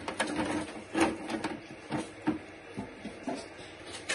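Irregular knocks and clatter of metal steaming pans being handled, about a dozen short hits across four seconds.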